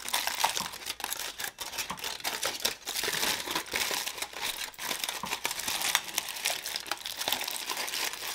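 Aluminium foil wrapper crinkling as it is peeled open and pushed back from a large burrito: a continuous run of sharp crackles.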